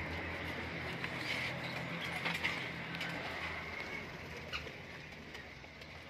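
A steady low engine hum that fades out about four seconds in, with a few light knocks.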